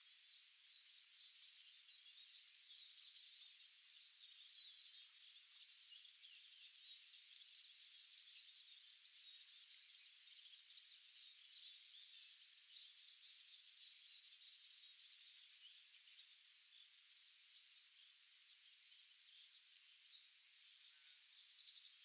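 Faint woodland ambience: a distant chorus of many small songbirds chirping and singing.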